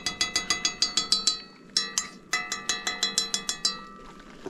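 Quick metallic tapping, about eight taps a second, each ringing on the same few bright pitches, from a metal fork striking metal. The tapping comes in two runs of one and a half to two seconds with a short break between.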